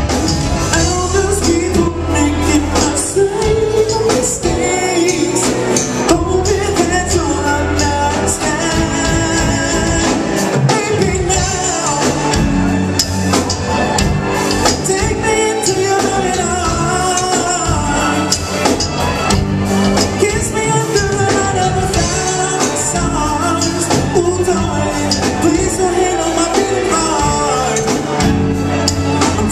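Live band playing: a male lead singer singing over drum kit, electric guitar and keyboards, amplified through a PA.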